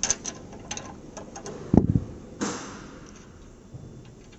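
Steel wrench and nut on a bolt under a Pilates reformer carriage: a quick run of small metallic clicks as the wrench is worked on the nut, then a low thump a little under two seconds in and a short scrape, with a few faint ticks near the end.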